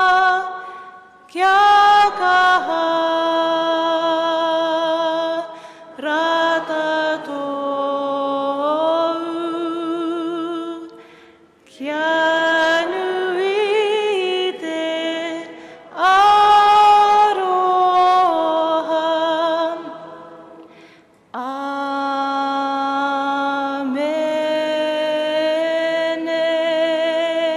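A solo voice singing a slow hymn unaccompanied, in long held phrases with vibrato and short breaths between them.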